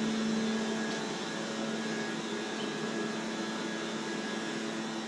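Steady mechanical hum with a constant low tone, like a running motor, easing slightly in level toward the end.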